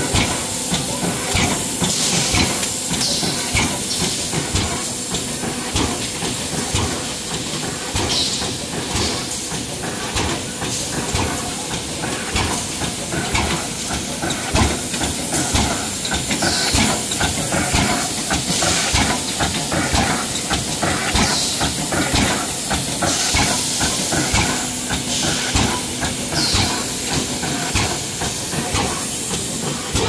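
A refrigerator evaporator fin stacking machine running: a dense clatter of rapid metallic knocks and a constant hiss, with short louder puffs of air from its pneumatic system every few seconds, over a faint steady hum.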